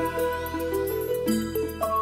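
Instrumental background music: a quick melody of short notes over a low held tone.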